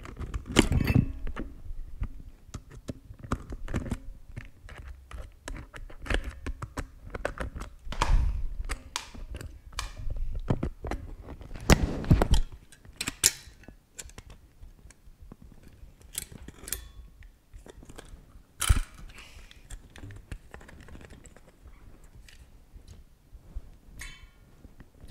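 Handling noise of a Jelly Comb wireless mouse being taken apart by hand: irregular small clicks, taps and scrapes of the plastic shell, screwdriver and circuit board, with a few louder knocks.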